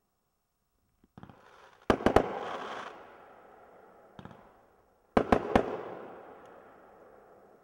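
Dominator Iron Gorilla fireworks cake firing: a brief hiss, then two volleys of three sharp bangs about three seconds apart as its shells break, each trailing off in a slowly fading rumble.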